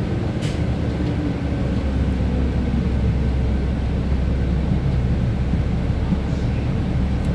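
Cabin noise of a 2025 Gillig CNG city bus on the move: a steady low drive rumble with a whine that falls in pitch over the first couple of seconds. The rumble grows heavier about two seconds in, and there is one brief click early on.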